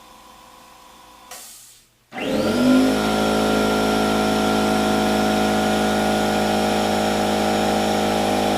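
California Air Tools 8010 oil-free dual-piston air compressor starting up about two seconds in, its motor quickly spinning up to speed and then running steadily. Before it starts there is a faint hum and a short noise.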